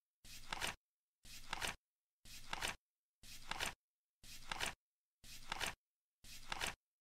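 Flip clock's number card flipping over seven times, once a second: each flip a short rustle ending in a sharp double click.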